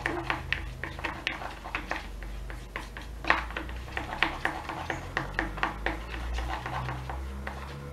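Wooden popsicle stick stirring a thick glue-and-toothpaste mixture with baking soda in a plastic bowl, scraping and tapping against the bowl in irregular clicks, a few a second.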